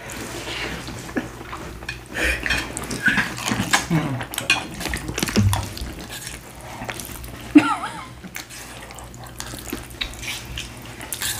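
Slurping and chewing of noodles, with forks clinking on plates and one sharp click, the loudest sound, about seven and a half seconds in.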